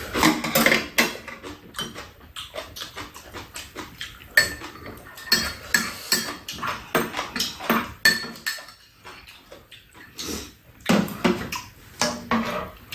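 Metal spoons and chopsticks clinking irregularly against bowls, a pan and a metal serving tray as two people eat.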